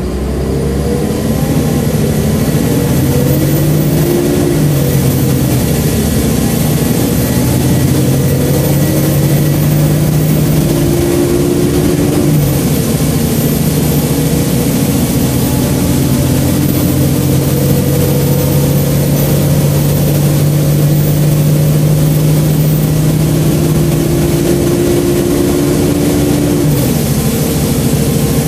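Volvo B7LA diesel engine of a Wright StreetCar bus heard from inside the saloon, pulling as the bus gathers speed. The engine note climbs and drops back sharply three times, about four, twelve and twenty-seven seconds in, as the ZF automatic gearbox changes up, with steady road noise underneath.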